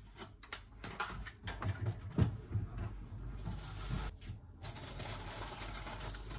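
Things being handled: scattered clicks and knocks, a louder knock about two seconds in, then a steady rustling hiss through the second half.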